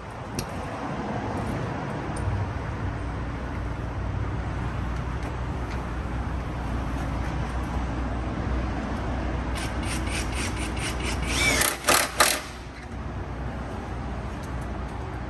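Steady workshop background noise while parts and tools are handled in a truck's engine bay. About ten seconds in comes a run of sharp clicks, then a brief loud clatter of metal near the end.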